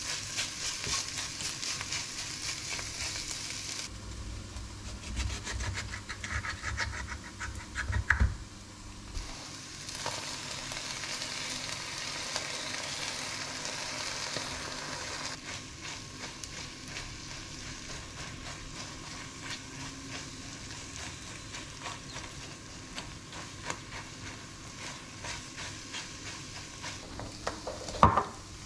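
Egg and spinach sizzling in a nonstick frying pan while a silicone spatula stirs and scrapes through it. The sizzle thins out for a few seconds near the start, with a sharp knock about eight seconds in. Near the end comes a louder knock as a ceramic bowl is set down on the counter.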